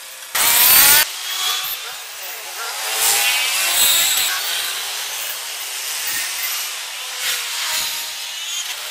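Busy street traffic with auto-rickshaw engines buzzing past, swelling and fading as vehicles go by. About half a second in there is a loud, harsh blast that lasts under a second.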